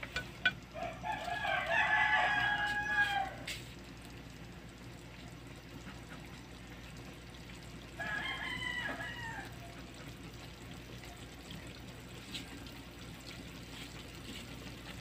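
A rooster crowing twice: a long crow of about three seconds near the start, and a shorter one about eight seconds in.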